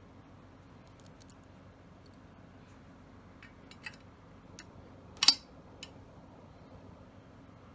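Small clicks and taps of shotgun parts being handled, with one sharp clack a little past halfway, the loudest sound, and a last click just after it.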